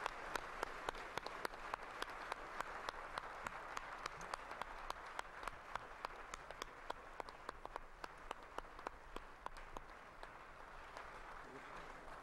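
An audience applauding, with a few sharp individual claps a second standing out above the general clapping; the applause thins out and dies away near the end.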